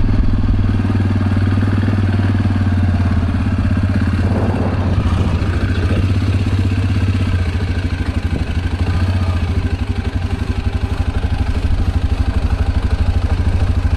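A vehicle engine running steadily with a regular low firing pulse, heard close up as if from on board.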